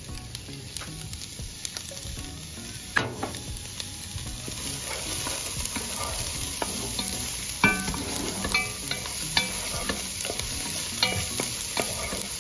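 Chopped red onion sizzling in olive oil in a pot on medium-low heat, the start of sautéing. The sizzle sets in about three seconds in and thickens, with a wooden spoon scraping and tapping against the pot as the onion is stirred, the taps coming often in the second half.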